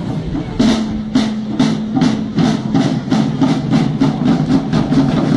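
A corps of Renaissance-style side drums playing: a continuous roll, with sharp accented strokes starting about half a second in. The strokes come faster and faster, reaching about four a second.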